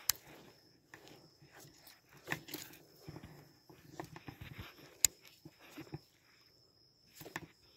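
Quiet handling sounds from a Titan Pro 3000 baitcasting reel being worked: scattered small clicks and knocks, with one sharp click about five seconds in.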